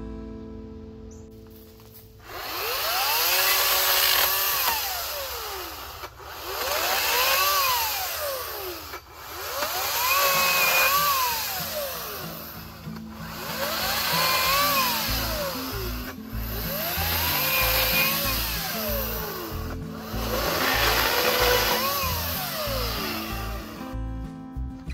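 Ryobi 40-volt battery chainsaw cutting branches in repeated bursts: six times the motor whines up in pitch, runs through the cut and winds back down, each cycle lasting three to four seconds.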